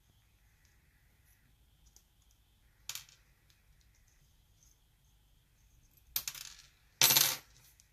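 Small metal lock parts on a hard surface: faint ticking, a sharp click about three seconds in, then two short metallic clatters near the end, the second the loudest. This fits pin tumblers and springs being tipped out of a practice lock's chamber.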